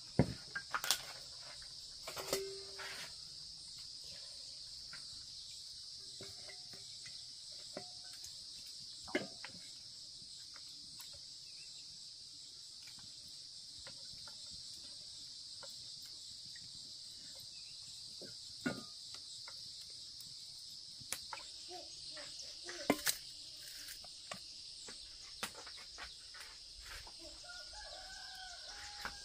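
Steady high-pitched insect chorus, with scattered clinks and knocks of metal pots, lids and bowls being handled, and a few short chicken clucks and calls.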